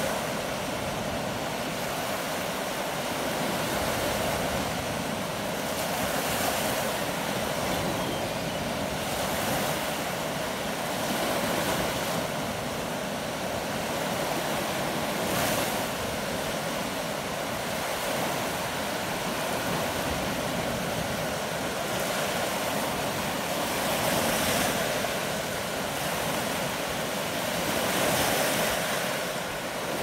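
Small waves of Lake Michigan breaking and washing up the sandy shore: a steady rush of surf that swells and eases every few seconds.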